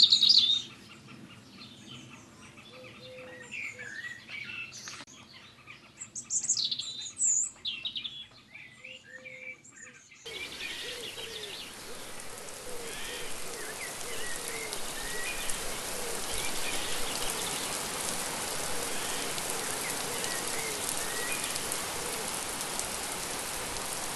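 Small birds chirping and singing. About ten seconds in, the sound cuts suddenly to steady rain with faint bird calls through it.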